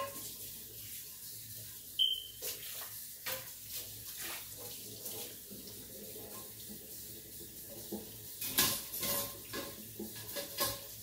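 Kitchen faucet running into a stainless steel sink during dishwashing, with the clatter and knocks of dishes and pans being handled, some ringing briefly. A cluster of louder clanks comes near the end.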